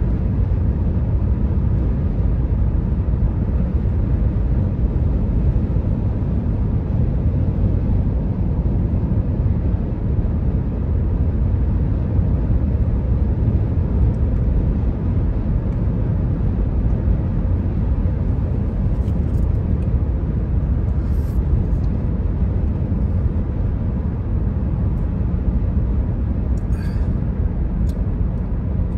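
Steady low road and engine rumble inside a car cruising on the highway.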